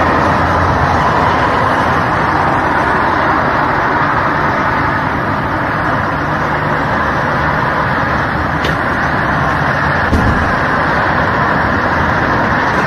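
Steady road traffic noise, a constant even rumble and hiss without a break.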